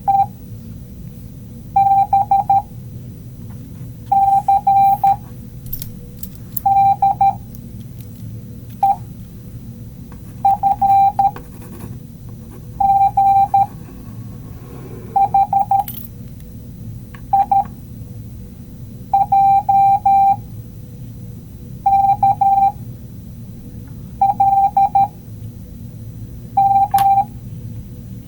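Morse code played as a steady mid-pitched beep tone, keyed on and off in short groups of dots and dashes, about a dozen letters sent one every two seconds or so, over a steady low hum.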